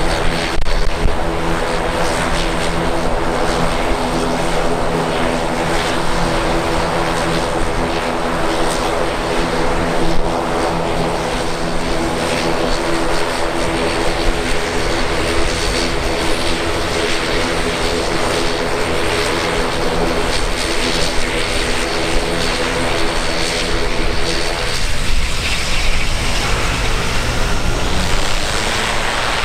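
Turboprop aircraft running with a steady hum of several even tones over a noisy rush; the tones break up about 25 seconds in.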